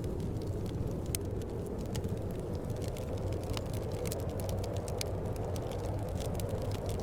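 Wood fire crackling, with frequent small sharp pops, over a steady low rumble of wind.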